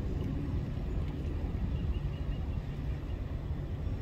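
Steady low rumble of a motorboat engine running out on the water, with a faint run of high peeps about two seconds in.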